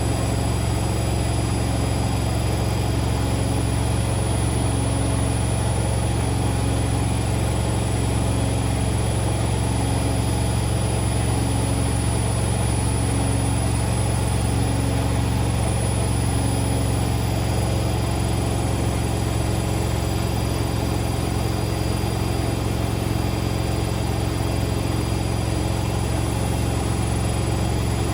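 Indesit Moon SIXL145 washing machine in its final spin at 1400 rpm, running at a steady high speed with a strong constant hum and a fainter tone that pulses about once a second.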